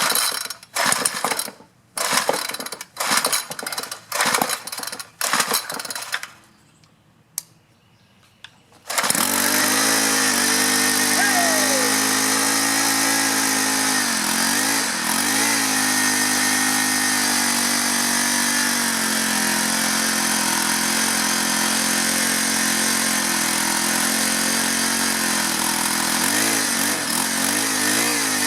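Craftsman 4-cycle string trimmer engine being pull-started: several quick pulls on the recoil starter, then a pause. About nine seconds in the engine catches and keeps running, its speed dipping a couple of times. This is the first start after new fuel lines and a cleaned, rebuilt carburetor.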